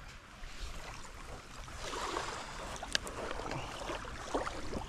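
Lake water lapping and trickling at the bank, with a sharp click about three seconds in.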